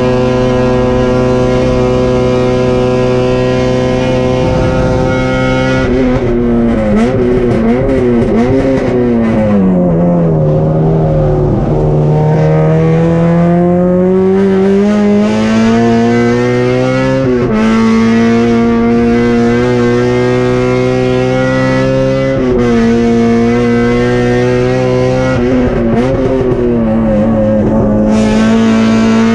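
Honda K24 four-cylinder engine of a race-prepared Civic, heard from inside the cabin at racing revs. It holds a steady pitch, then drops away with short wobbles as the car brakes and downshifts. It then climbs again under acceleration, dipping sharply twice at the upshifts, and falls once more with wobbles near the end.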